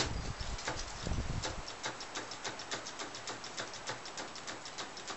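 Cordless drill working at a log post: a low motor run for about the first second and a half, then a steady run of sharp clicks, about six a second.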